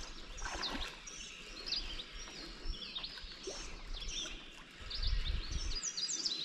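Birds chirping and calling, many short high chirps in quick succession, with a low rumble rising about five seconds in.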